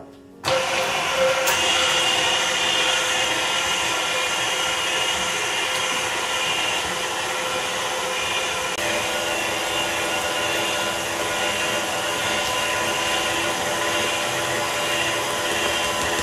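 KitchenAid tilt-head stand mixer switched on about half a second in, then running steadily with a motor whine, its wire whisk beating thick cold pastry cream in the steel bowl to make it smooth.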